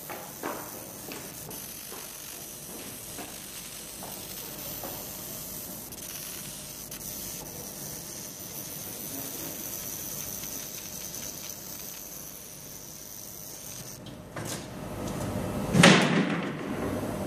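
Automated fiber laser marking machine at work on an aluminium ruler: a steady hiss with a thin high whine, which stops about fourteen seconds in. About sixteen seconds in there is a loud, short rushing noise.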